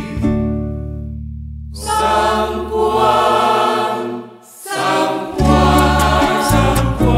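Choir singing a choral arrangement. A held low chord fades out, the full choir comes in about two seconds in, there is a brief drop about four and a half seconds in, and then a rhythmic section with repeated low notes starts up.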